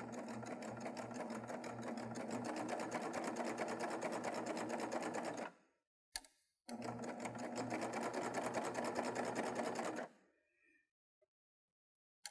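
Baby Lock Triumph serger sewing a cover-stitch hem, its needles running at a fast, even rate. It stops about five and a half seconds in, gives a single click, runs again for about three seconds, and stops.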